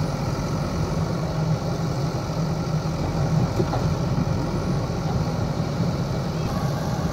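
Diesel engines running steadily: a Powertrac 445 tractor standing at idle beside a JCB backhoe loader that is swinging its bucket to load soil into the tractor's trolley.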